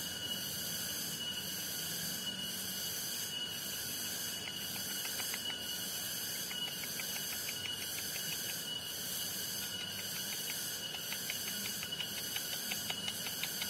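Steady rural background of insects calling, a high hiss that pulses in a regular beat a little faster than once a second, with faint rapid ticking in the second half.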